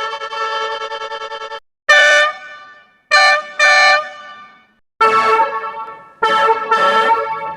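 Bus horn sound effect played in edited variations: a long held blast that cuts off about a second and a half in, then a short blast, a quick double blast, and near the end a blast followed by two more close together.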